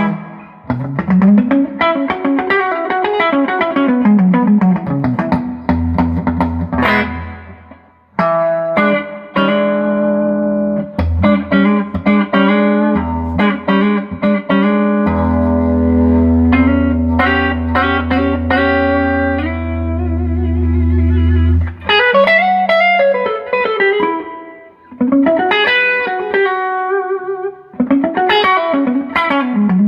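Electric guitar played through a Crafts Audio Opt Comp compressor pedal, picking notes and chords with long sustain. Several notes slide up and back down in pitch, and a chord with a low bass note rings out for several seconds in the middle.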